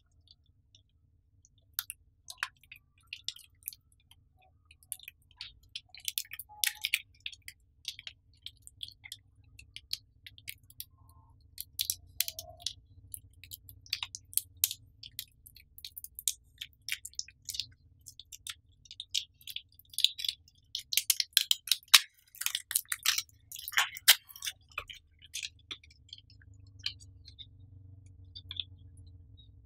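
Handling noise from a Logitech C922 webcam and its cable and packaging: scattered small plastic clicks and crinkles, thickest in a dense run of crackling about two-thirds of the way through.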